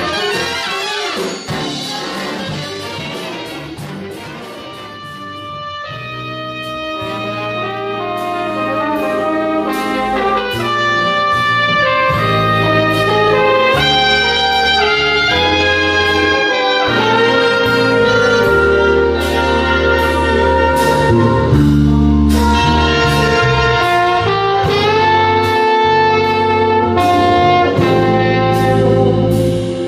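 Live big band jazz: a trumpet, trombone and saxophone section with drum kit and bass guitar. The first few seconds are softer and fading, then about six seconds in the horns come in with held chords over bass notes and regular cymbal strokes, building louder.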